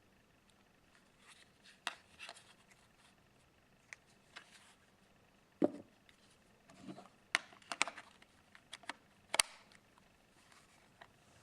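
Nokia 450 mobile phone being handled: irregular small clicks and taps, a duller knock about halfway through, then a quick run of sharper clicks and one louder click near the end. No ringtone sounds.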